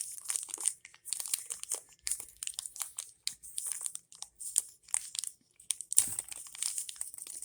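Small plastic toy package being crinkled and torn open by hand: irregular crackling and rustling, with a louder burst of crinkling about six seconds in.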